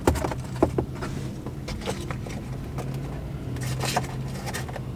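Light taps and rustling clicks of a cigarette pack being handled and tucked into a car's sunroof frame, a few in the first second and another cluster about four seconds in, over a steady low hum.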